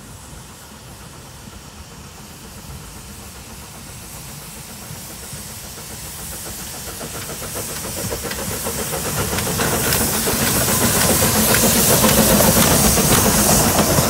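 A 1936 Henschel Preller narrow-gauge steam locomotive approaching and passing close with its train, hissing steam over the working of the engine. It grows steadily louder, with the hiss strongest in the last few seconds as the locomotive comes alongside.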